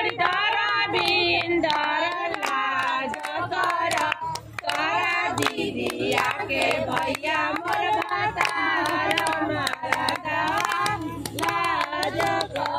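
Several women singing together in overlapping, wavering voices, with hand claps sounding through the song.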